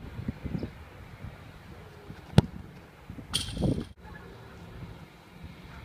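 A soccer ball kicked hard: one sharp strike of the foot on the ball about two and a half seconds in. About a second later comes a brief, softer burst of noise.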